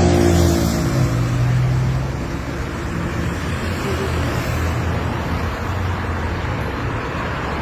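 A motor vehicle engine running with steady road traffic noise. A deep engine hum is loudest for the first two seconds and then settles into the traffic haze.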